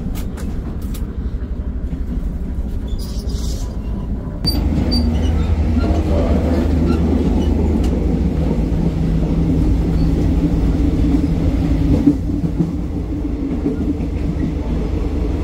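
Passenger train running, heard from inside the carriages: a steady low rumble of wheels on track, which gets louder about four seconds in. About twelve seconds in there is a single sharp knock.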